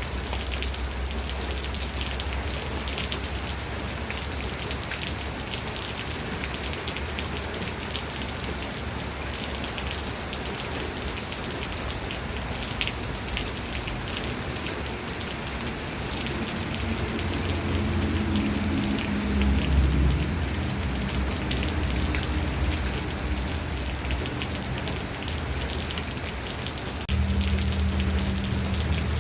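Steady rain falling on a surface, a dense even hiss with many fine drop patters. A low rumble comes in over the second half, swelling briefly twice.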